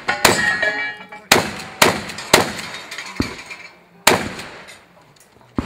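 Shotgun shots in a string, five in all: one just after the start, three quick ones about half a second apart between one and two and a half seconds in, and one more about four seconds in, each ringing on after the report. A short, duller knock about three seconds in and a louder one near the end.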